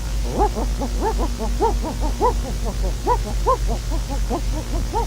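A dog barking in a rapid string of short, high, yappy barks, about four a second, over a steady low electrical hum.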